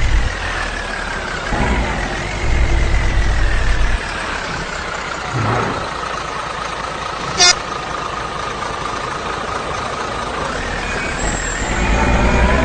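Putra Luragung bus engine running through a modified exhaust that rumbles with a deep "snoring" note. The rumble is heavy for the first few seconds, then eases while a high whine slowly falls in pitch. A sharp click comes about halfway through, and near the end the engine revs up again, rising in pitch.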